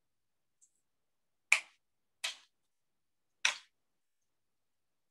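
Three short, sharp clicks, unevenly spaced about a second apart.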